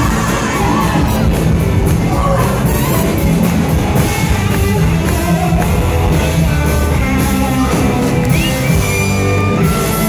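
Live band playing rock music: electric guitars, drums and singing, in a large hall.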